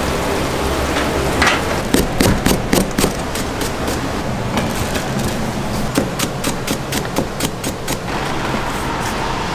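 Cleaver chopping green onions on a thick round chopping block: a quick run of sharp knocks, about four a second, starting about two seconds in and easing off near the end, over a steady background rush.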